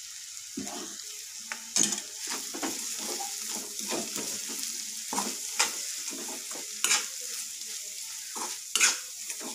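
A metal spatula stirring dry-fried cluster beans in a metal kadhai, with a soft steady sizzle and several sharp clinks and scrapes of the spatula against the pan.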